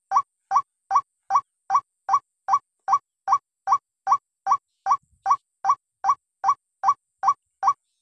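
White-breasted waterhen call: short, slightly rising notes repeated evenly about two and a half times a second. This is the ruak-ruak call used as a lure to draw waterhens.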